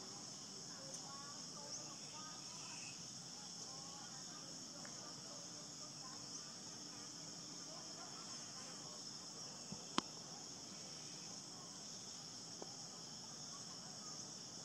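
Steady, high-pitched insect chorus. There is a single sharp click about ten seconds in.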